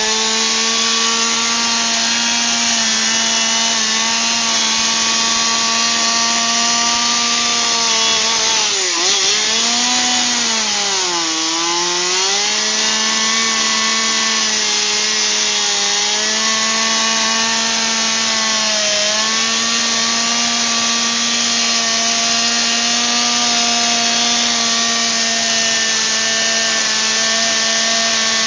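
Chainsaw engine running at high revs, its pitch sagging as the chain bogs down in the wood for a few seconds about nine seconds in and briefly again near nineteen seconds, then climbing back.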